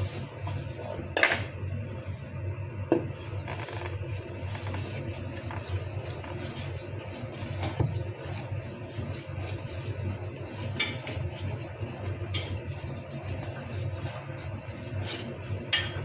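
Wire balloon whisk stirring batter in a stainless steel mixing bowl, with scraping and several sharp clinks of the wires against the bowl, the loudest about a second and three seconds in. A steady low hum runs underneath.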